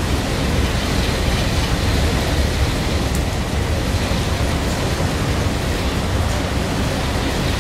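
Steady rushing storm noise of wind and rain on a boat crossing, with a low fluttering rumble of wind buffeting the microphone; no thunder clap.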